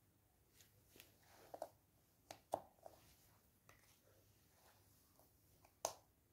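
Faint scattered clicks and taps of cardboard jigsaw puzzle pieces being handled and pressed into place on a tabletop, the sharpest about two and a half seconds in and near the end.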